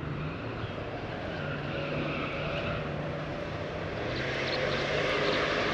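A motor engine running steadily, its pitch drifting slightly, with a rushing hiss that swells louder in the second half.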